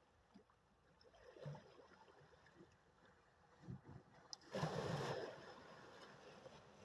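Small sea waves lapping, with one louder wash of water a little past the middle.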